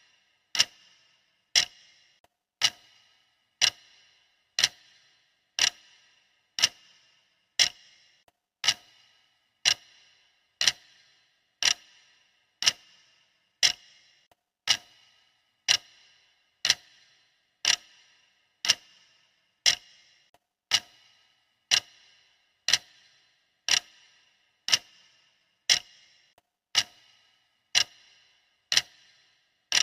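Clock ticking steadily, about once a second, each tick a sharp click with a brief ringing tail.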